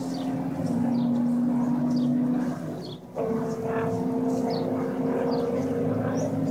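Race car engine running hard at steady revs on the circuit; it drops away briefly about three seconds in, then comes back at a higher pitch.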